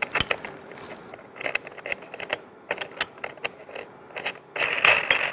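Small metal parts being handled: scattered light clicks and clinks, with a denser scraping rustle for about half a second near the end.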